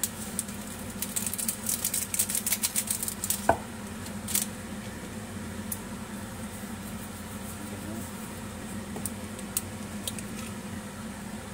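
Kitchen handling clatter: a quick run of light clicks and taps over the first three or four seconds, then a few scattered ticks, over a steady low hum.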